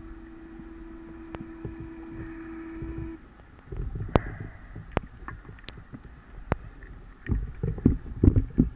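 Scuba diver breathing underwater through a regulator: a steady hum for the first three seconds, a few sharp clicks, then bursts of exhaled bubbles near the end.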